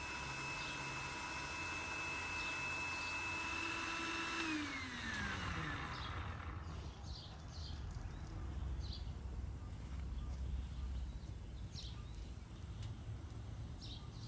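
Small electric motor turning the bicycle-wheel rotisserie whines steadily, then falls in pitch and fades out as it spins down, about four and a half seconds in. Faint bird chirps follow over outdoor background noise.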